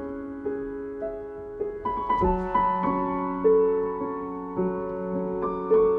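Soft background piano music: slow, single sustained notes, with a lower note joining a little over two seconds in.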